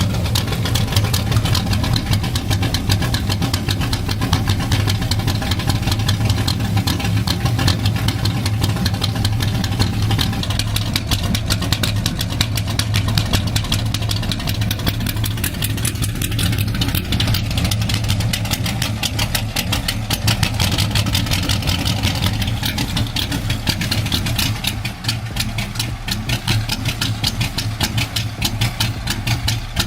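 Corvette engine idling steadily, with a rapid, even pulsing throughout. To the people listening it sounds weird and "a little funky", not right, though they can't say what the fault is.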